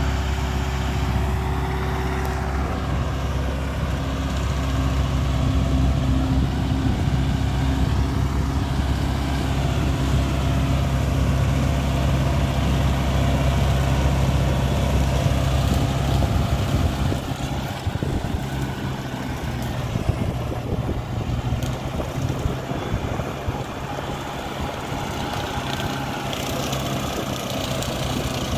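Farm tractor's diesel engine running steadily as it pulls a rotary mower through tall grass. Its low hum weakens a little past the middle.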